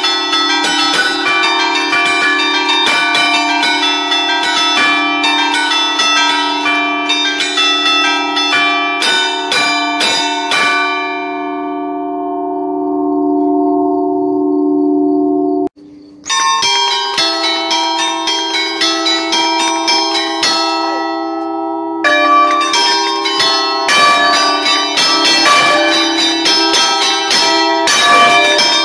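Five-bell church concert in D, cast by Barigozzi in 1952, chimed by hand from a lever keyboard (allegrezze): quick, rhythmic clapper strikes on the stationary bells in festive patterns. The striking stops about ten seconds in and the bells ring on and fade, then after a sudden break it starts again, pausing briefly once more before running on densely.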